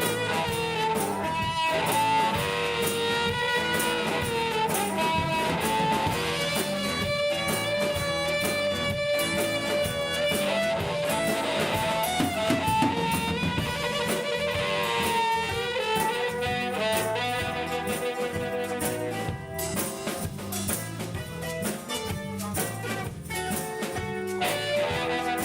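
Live band music with guitar and a drum kit, a lead melody line held and bent over the accompaniment.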